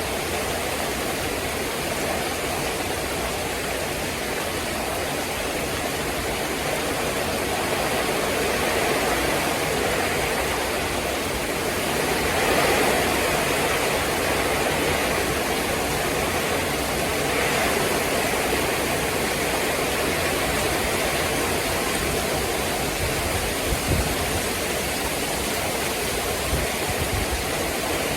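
Heavy rain pouring onto roof tiles: a dense, steady hiss that swells a little twice midway, with a few soft low knocks near the end.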